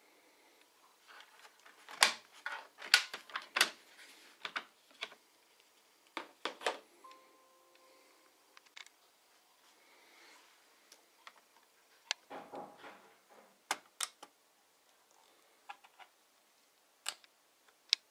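Scattered sharp plastic clicks and knocks of a Dell Inspiron 15 laptop being handled on a table, coming in clusters with short quiet gaps between them.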